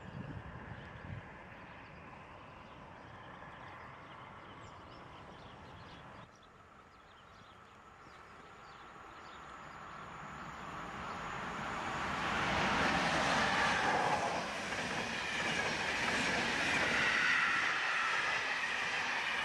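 A passenger train of coaches approaching and passing close by. Its running noise from wheels on rails builds from about halfway through and stays loud through the last seconds.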